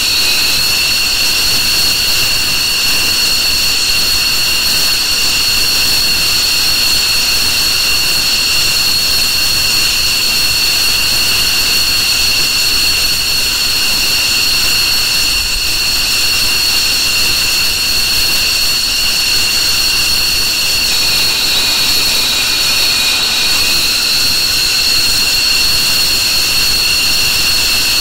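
JASDF F-15J's twin Pratt & Whitney F100 turbofan engines running with a steady high-pitched whine over a rushing roar. The whine sags slightly in pitch about three quarters of the way through.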